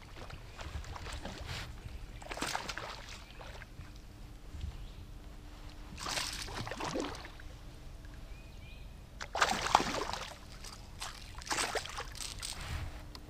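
A hooked bass splashing and thrashing at the water's surface beside a kayak as it is reeled in and lifted out. The splashing comes in about four bursts, the loudest about two-thirds of the way through.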